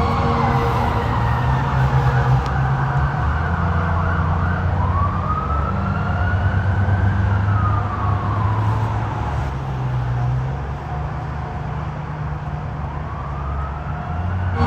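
Police car siren wailing, its pitch falling, then slowly rising and falling again, and beginning to rise once more near the end. A steady low rumble runs underneath.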